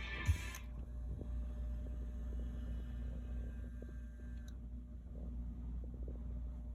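Record music cuts off with a soft thump just after the start. Then a steady low hum with faint scattered clicks from the Bang & Olufsen Beogram 800 turntable's mechanism as it runs on without music; a faint thin tone underneath stops about halfway.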